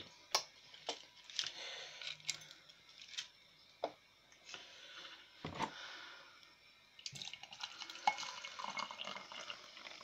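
Someone making a cup of tea in a kitchen: scattered clinks and knocks of crockery and a spoon, with a stretch of running water in the second half.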